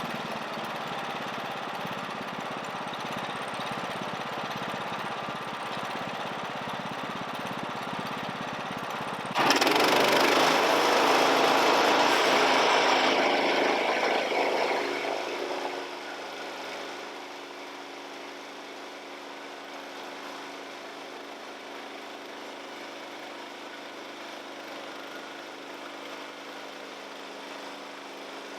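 Small petrol engine of a lumber mill running steadily. About nine seconds in it suddenly gets much louder for about five seconds, then dies back to a quieter, steady idle.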